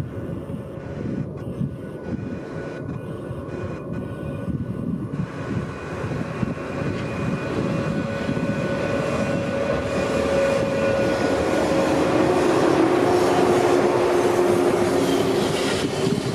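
Electric train running through the station, growing steadily louder, with steady whining tones over a rumbling noise.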